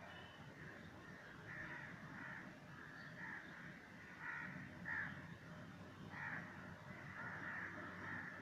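Two puppies play-fighting, giving a string of short, irregular high yaps and squeals, the loudest about five seconds in.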